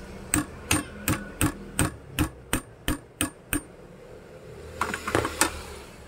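A hammer knocks ten times on a metal ID card cutter at a steady pace of about three blows a second. After a short pause, metal parts clatter briefly as they are set in place.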